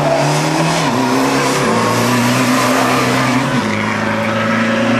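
Small hatchback rally car's engine running hard at high revs on a special stage, holding a steady pitch that steps down a few times.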